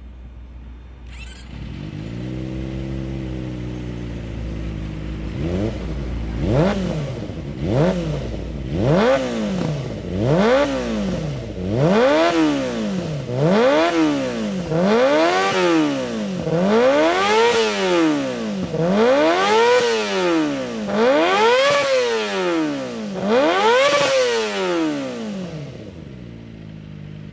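Kawasaki Ninja ZX-25R's 250 cc inline-four running through an aftermarket Corse exhaust muffler. It idles briefly, then is revved in a long series of throttle blips, about a dozen, each a rising then falling whine about every one and a half to two seconds, the later ones climbing higher. The engine note fades away near the end.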